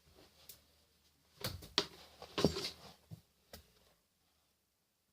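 Items being handled and moved about: a cluster of short knocks and rustling from about a second and a half in to about three and a half seconds in.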